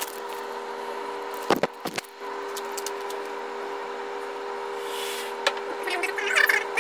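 Long-reach demolition excavator running with a steady hum from its engine and hydraulics. There are two sharp knocks about a second and a half in, and near the end a crackling, crunching noise builds up as its jaws break into the building's masonry.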